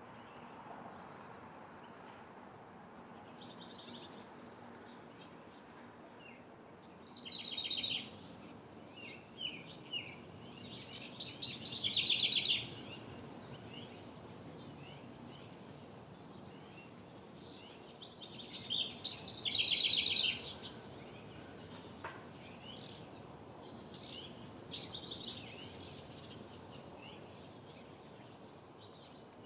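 Wren singing: a rapid, bubbly trilled song of about one to two seconds, repeated every several seconds, with faint chirps in between over a steady low background hum.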